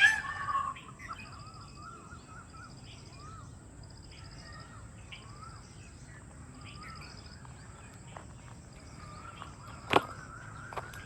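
Birds calling in a park: a loud, harsh call in the first moment, then soft scattered chirps and a high trill that repeats every second or so. One sharp click about ten seconds in.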